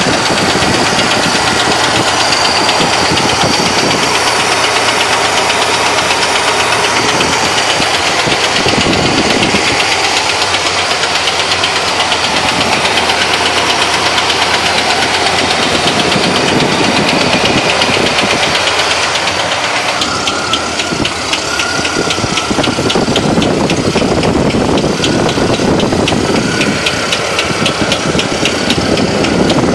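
Small-block Chevy 350 V8 running with a loud, fast, even knock, like somebody hitting the engine hard with a screwdriver handle; the source of the knock has not been found. The knocks come through more sharply about twenty seconds in.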